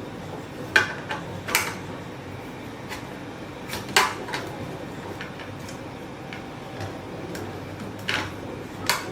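Five sharp clicks and knocks of hard parts being handled and set down, spread unevenly, over a steady background hiss.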